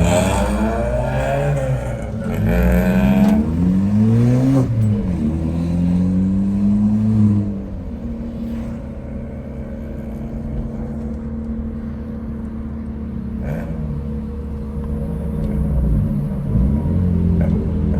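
Car engine accelerating hard through the gears, heard from inside the car: the revs climb and drop at each shift, about two, four and a half and seven and a half seconds in. It then settles into a steadier, quieter cruise before climbing again near the end.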